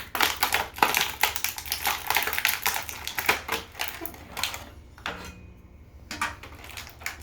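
Plastic packaging crackling and clicking as an action figure is pulled out of its box tray: dense rapid clicks for about four and a half seconds, then a few scattered clicks.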